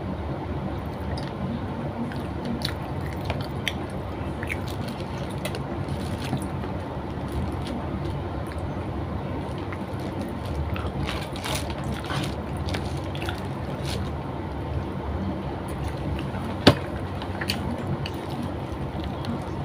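A person eating chicken and rice with her fingers: wet chewing and mouth sounds with scattered small clicks and one sharp click near the end, over a steady low hum.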